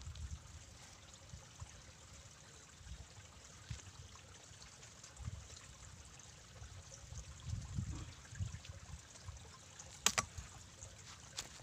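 Water trickling and dripping off a fishing net as it is hauled up out of the water by hand, with a few low bumps and a sharp click about ten seconds in.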